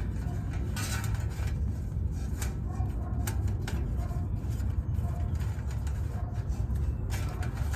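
Steady low rumble, like wind buffeting the microphone, with scattered light metallic clicks and taps from hand tools working on an outdoor AC condenser unit.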